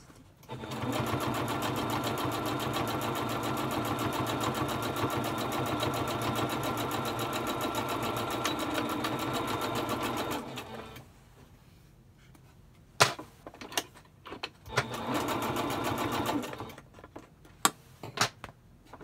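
Electric home sewing machine stitching a seam: one steady run of about ten seconds, then a few sharp clicks and a second, shorter run of about a second and a half, with more clicks after it.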